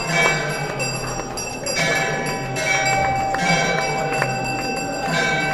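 Temple bells rung over and over, each strike leaving long ringing tones that overlap, with music behind them.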